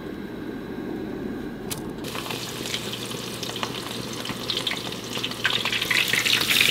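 Oil in a frying pan on a propane camp stove crackling and sizzling as breaded razor clam strips go in, starting about two seconds in and getting louder near the end. A low steady rumble runs underneath.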